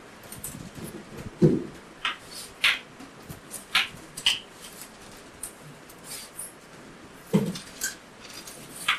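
Crockery being handled on a tea tray: a run of light, irregular clinks of cups, saucers and a pitcher, with two duller thumps, one early and one near the end.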